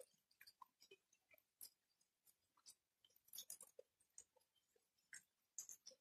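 Sparse raindrops landing close to the microphone: a faint scatter of short, irregular ticks, several a second, with no steady rain hiss behind them.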